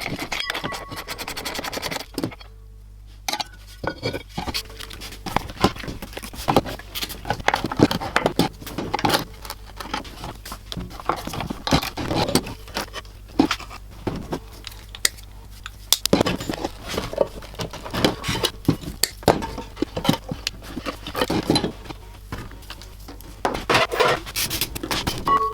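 Metal tools and parts of a rusty cast-iron hand-crank fire alarm clinking, knocking and scraping as it is worked on, with many sharp clicks at uneven intervals and a fast run of clicks near the start.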